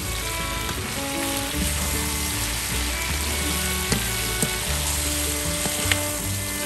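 Eels stir-frying in a metal wok: a steady sizzle, with a spatula stirring and clicking sharply against the pan a few times. Soft background music with steady low notes plays underneath.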